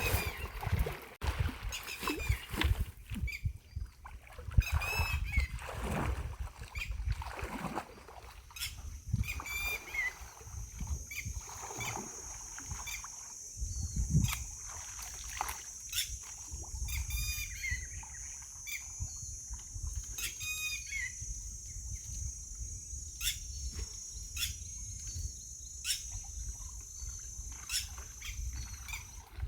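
A bird calling repeatedly with short chirps, over irregular knocks and splashing in the water. A steady high-pitched whine sets in about a third of the way through and holds.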